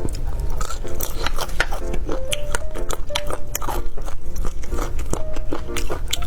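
Crisp crunching bites and chewing close to the microphone, a sharp crunch every fraction of a second, over background music with a simple stepped melody.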